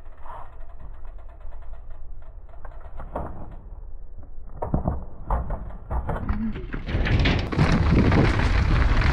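Mountain bike on a concrete ledge: light clicks, then several sharp knocks as the tyres hit the wall. About five seconds in, the sound changes to a helmet-camera downhill run on a dirt trail: wind on the microphone and tyres rumbling over gravel, getting louder near the end.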